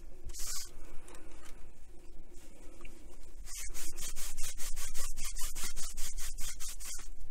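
A cleaning wipe is scrubbed back and forth across the radio's speaker grille and case. It goes softer and smoother for a couple of seconds, then from about halfway turns into quick regular strokes, about four a second.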